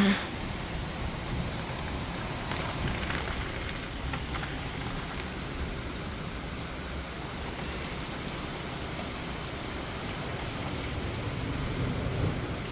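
Steady rain of a thunderstorm pouring down, with a low rumble of thunder building near the end.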